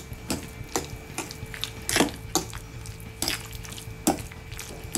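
A metal fork stirring a thick egg, cheese and meat mixture in a ceramic bowl, clinking and scraping against the bowl in irregular taps. A faint steady hum runs underneath.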